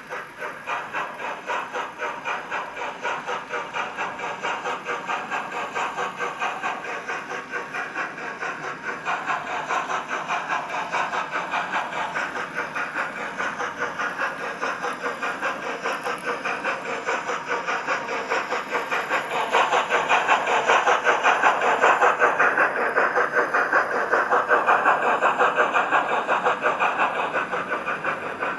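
Digital steam locomotive sound from a Zimo DCC sound decoder in a Heljan OO gauge Gresley O2 2-8-0 model, played through a small sugar cube speaker in the tender: a steady, fast beat of exhaust chuffs with little bass. It gets louder about two-thirds of the way through.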